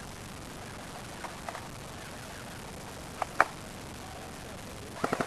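Airsoft guns firing: a few single shots, then a short rapid burst of about seven shots near the end, over a steady hiss.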